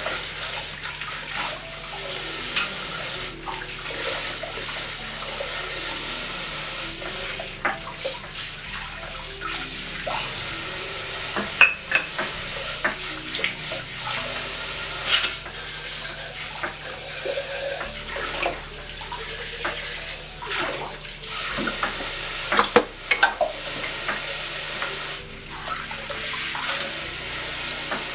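Tap water running steadily into a sink while cookware is washed by hand, with scattered sharp knocks and clatters of pots and pans.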